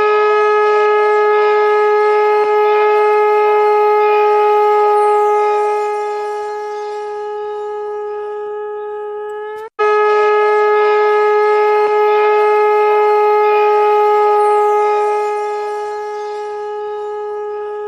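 Conch shell (shankha) blown in long steady blasts on one pitch. The first lasts about ten seconds, softens a little in its second half and lifts slightly in pitch as it ends. A second blast follows straight after.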